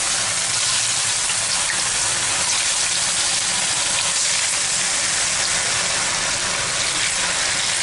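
Hot oil in a frying pan sizzling in a steady, dense hiss as cornflour-and-flour-coated chicken and potato sticks are lowered into it one after another to deep-fry.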